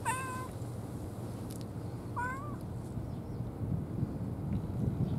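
Cat meowing twice, two short calls about two seconds apart, over a low steady background rumble.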